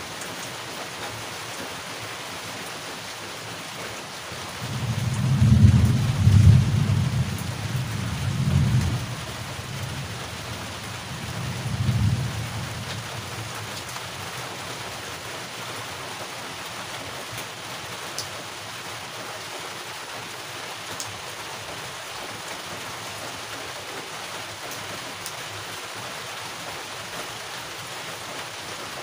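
Steady heavy rain hissing throughout, with thunder rumbling low and loud from about five seconds in, swelling twice, and once more around twelve seconds in before fading back to the rain.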